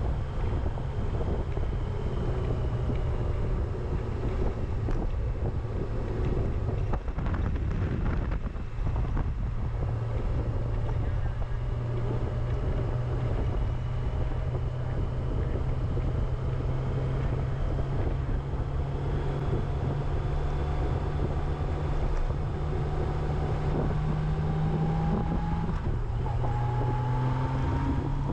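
Motorcycle running at road speed with wind buffeting the microphone. The engine note climbs slowly in pitch as it speeds up, most noticeably near the end.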